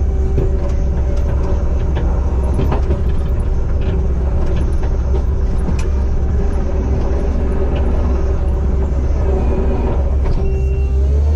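Diesel engine of a compact earthmoving machine running steadily at working speed, with a few sharp clicks scattered through it; near the end its pitch rises.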